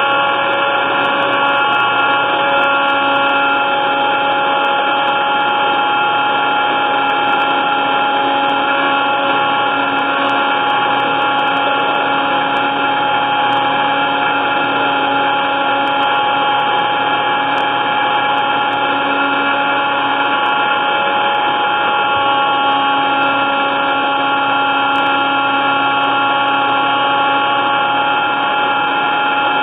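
Electric blender running continuously at one steady speed, its motor giving a constant whine with several steady tones over a rushing noise, while it purees a red mixture in its jar.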